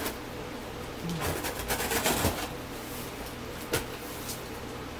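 Packing tape being slit and torn open along the seam of a cardboard shipping box, with cardboard scraping and rustling for about a second and a half, then a single sharp click.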